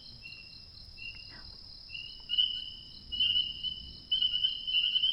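Night chorus of tiny pond frogs calling all together, a dense high-pitched trilling that dips and then swells louder again about two seconds in, over a steady higher buzz.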